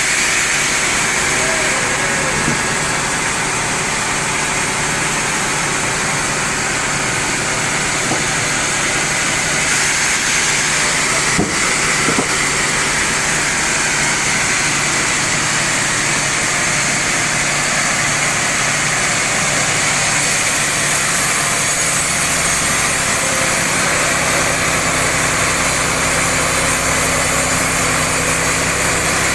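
Sawmill machinery running steadily: an even high hiss over a motor hum, with one sharp click about 11 seconds in. A deeper engine hum comes in about 22 seconds in.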